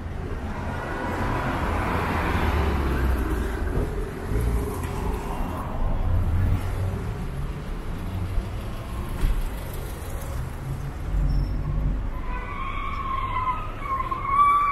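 City street traffic: cars driving past with a steady low rumble. Near the end a siren starts up with a wavering wail.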